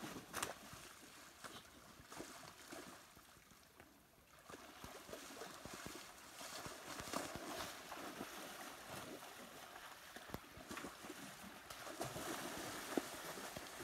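Faint, uneven splashing and sloshing of water as deer wade and thrash in a shallow muddy pond, with scattered small ticks.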